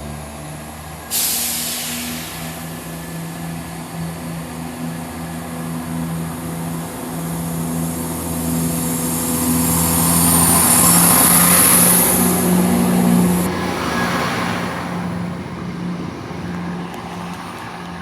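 Diesel multiple unit train at the platform: its underfloor diesel engine drones steadily while a loud, high hiss with a faint whine starts suddenly about a second in, builds, and cuts off sharply about three-quarters of the way through, typical of the train's air brakes.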